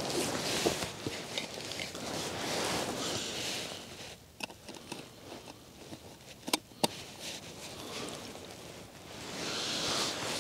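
Rustling of clothing and camping gear being handled, with a few sharp metallic clicks from a steel mug and stove. The loudest are a pair of clicks about six and a half seconds in.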